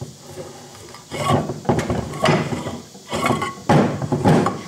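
Cast-iron sliding jaw of a Parker machinist vise scraping and clunking against the vise body as it is pulled out, in four or so rough strokes starting about a second in.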